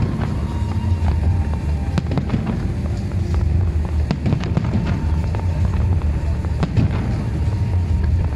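Aerial fireworks shells bursting in irregular bangs and crackles, roughly two a second, over a steady low rumble.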